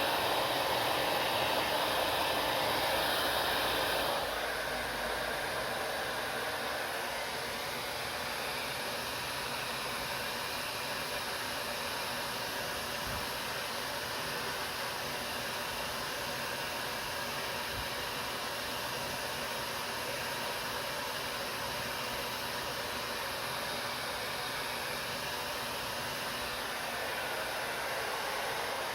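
Hair dryer blowing with a steady hiss. The sound drops a little about four seconds in and picks up again near the end.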